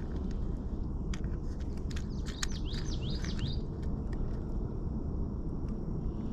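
A bird chirping a quick run of short gliding notes about two seconds in, over a steady low background rumble with a few faint clicks.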